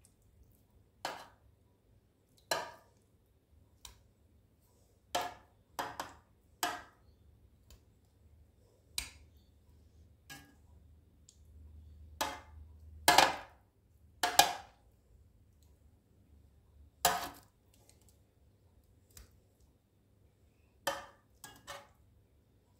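A little over a dozen sharp knocks and clinks of kitchen work, irregularly spaced and each ringing briefly, loudest about halfway through.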